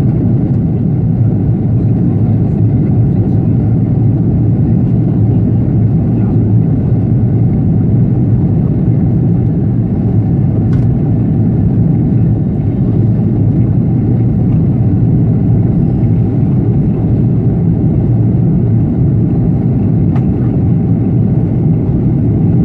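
Steady, loud cabin roar of an Airbus A330-300's Rolls-Royce Trent 700 engines and airflow during the climb after take-off, heard from a window seat behind the wing, with most of the sound low and deep.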